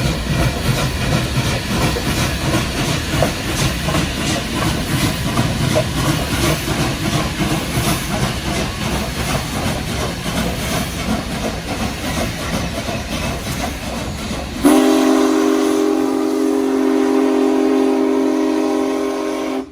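Steam locomotive working hard as it climbs a long bridge, a loud, uneven rumbling run. About three-quarters of the way through, its steam whistle comes in suddenly and holds one long, steady chord of several tones.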